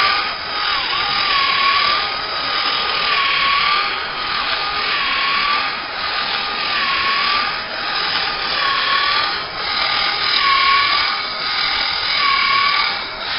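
Small DC motor whining as it turns the crank disc of a crank-and-slider mechanism that works a trigger spray bottle back and forth. The whine wavers in pitch and loudness in a regular cycle of just under two seconds.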